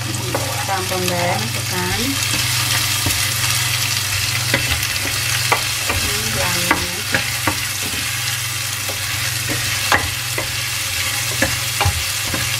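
Sliced onion sizzling in hot oil in a stainless steel frying pan. A spatula scrapes the onion in from a cutting board at the start, then stirs it, clicking and scraping against the pan over the steady frying hiss.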